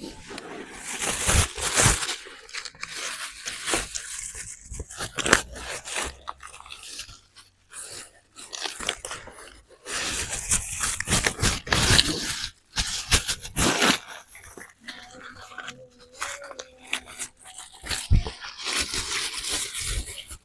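Loud, close crunching and chewing of crisp food, coming in irregular runs of bites.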